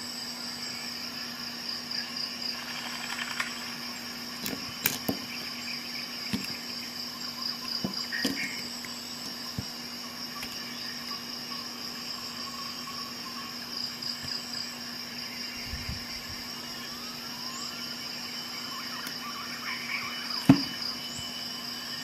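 Crickets chirping steadily, with a low steady hum and a few light clicks and taps from handling the metal pocket-knife tools, the sharpest near the end.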